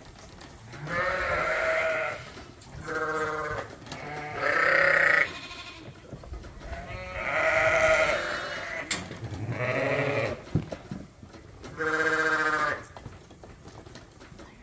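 Young lambs bleating, about six separate calls each lasting up to a second and a half, with short quiet gaps between them.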